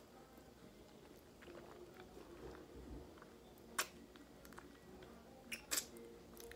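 Faint mouth sounds of someone eating stewed chicken by hand: quiet chewing and sucking food off the fingers, with a few short sharp wet clicks about midway and again near the end.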